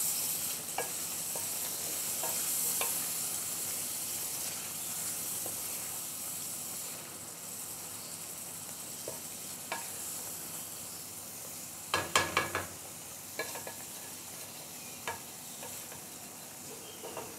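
Goat liver masala with yogurt sizzling in a metal kadai while a wooden spatula stirs it, with scattered taps and scrapes of the spatula against the pan and a quick run of them about twelve seconds in.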